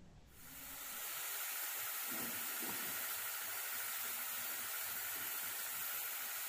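Steady hiss of a water spray from an HTP piston-pump sprayer, building up over the first second and then holding even.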